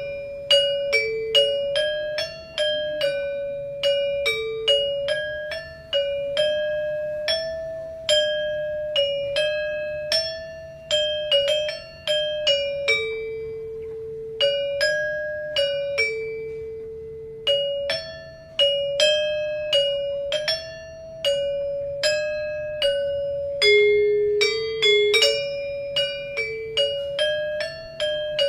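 Balinese gamelan-style metallophone music: mallets strike tuned bars in a quick, repeating melody on a few notes, each note ringing and fading. About halfway through, two lower notes are held longer before the quick figure resumes.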